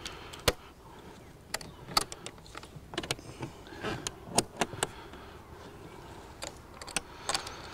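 Irregular clicks and light knocks of a composite beehive lid being fitted and pressed down on the stacked hive boxes.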